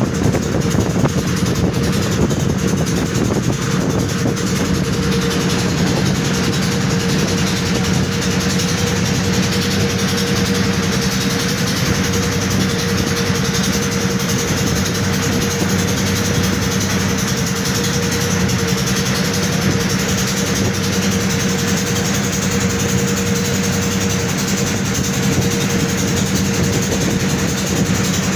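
Boat engine running steadily, a constant drone with a steady hum.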